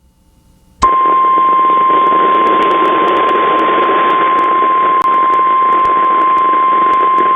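NOAA Weather Radio 1050 Hz warning alarm tone: one long, steady high tone that starts suddenly about a second in, over the receiver's hiss. It signals that a warning is about to be read, here a severe thunderstorm warning.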